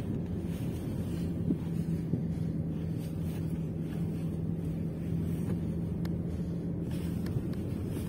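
A car driving along a country road: a steady low rumble of engine and road, with wind on the microphone. A steady engine hum comes in about a second in and fades near the end.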